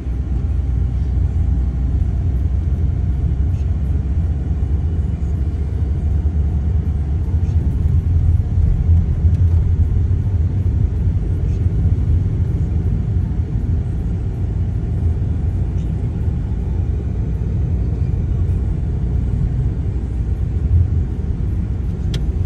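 Steady low rumble of a car driving, heard from inside the cabin: engine and road noise while moving.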